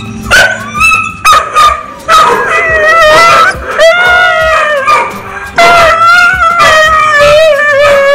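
Husky howling and whining: a few short yips, then three long, wavering howls.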